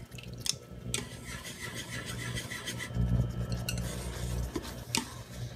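A utensil stirring and scraping in a square frying pan of simmering mentsuyu broth with shiitake as potato-starch slurry thickens it into a sauce, with scattered light clicks against the pan over a steady low hum.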